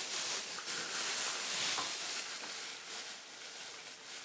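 A cat chewing and crunching dry kibble mixed with canned food in a bowl close by: a dense, crackly crunching that grows quieter over the last second or so.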